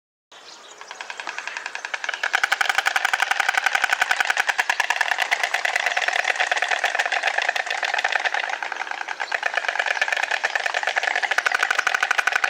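White stork bill-clattering: a fast, rattling run of sharp clicks that starts a moment in, swells in loudness over the first two seconds, then keeps going loud and rapid.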